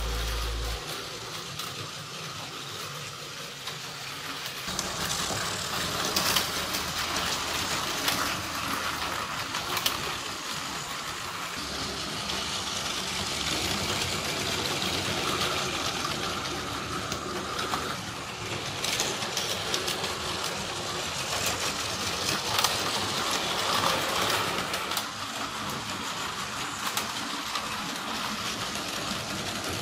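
Battery-powered Plarail toy trains running on plastic track: small motors and gears whirring steadily, with wheels clicking and clattering over the track joints. It gets louder about five seconds in.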